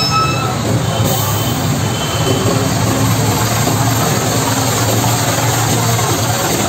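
Steady street traffic noise at a bus terminal, with a constant low engine hum from idling buses and trucks.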